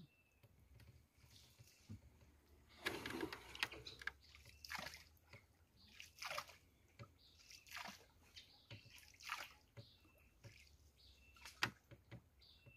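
Soft splashes and trickling of water, repeated about once every second and a half, as a paddle is worked through the water of a small boat on a canal.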